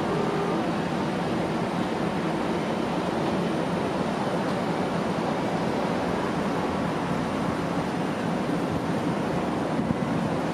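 Nagasawa Sawaboy NSG-08F food grinder running steadily on test, a constant even noise that holds at one level throughout.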